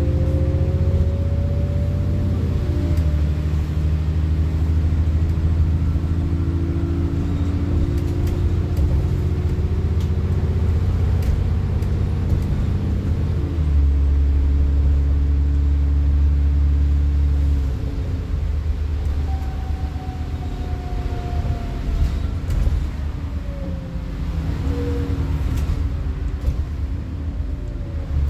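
Alexander Dennis Enviro 400 (E40D) double-decker bus heard from inside the cabin, its diesel engine working hard under acceleration with a heavy low rumble. The engine note climbs slowly and then falls back sharply at each gear change, three times, with small rattles from the interior.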